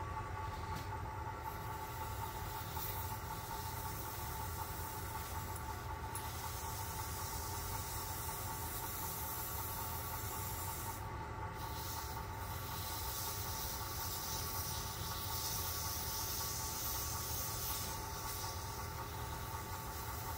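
Wood lathe running steadily with a motor whine, while a handful of wood shavings pressed against the spinning pen blank gives a hissing rub that swells and fades, strongest in the last third.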